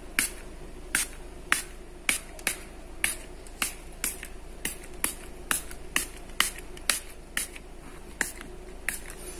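Helmet perfume spray bottle giving short spray puffs, about two a second in an even run, into a motorcycle helmet's foam lining to freshen it against a musty smell.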